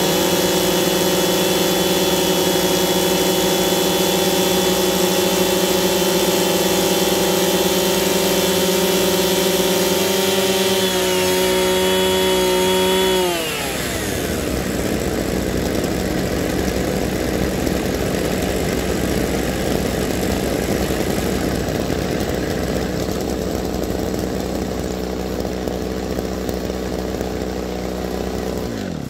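Several Kioritz SRE3600 36cc two-stroke brush cutter engines idling together in a steady drone. About halfway through their pitch sinks and the sound gets quieter, then the remaining engines run on steadily.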